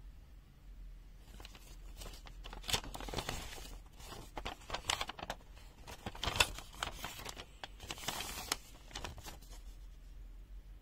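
Paper and packaging rustling and crinkling as they are handled. There is a run of crackles from about a second in to near the end, loudest about three and six seconds in.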